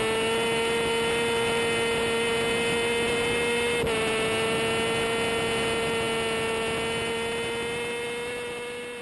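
Racing motorcycle engine held at steady high revs, with a slight dip in pitch about four seconds in, fading out near the end.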